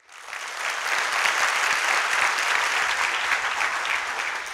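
Audience applauding in an auditorium, a dense steady patter of many hands clapping that swells up within the first half-second.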